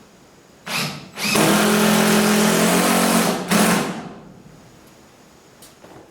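Power drill running: a short blip, then a steady run of about two seconds, then a brief final burst.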